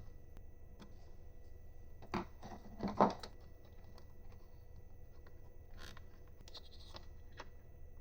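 Hardware being handled during hand assembly: a few short knocks and clicks, a cluster about two to three seconds in with the loudest at about three seconds, then scattered lighter clicks.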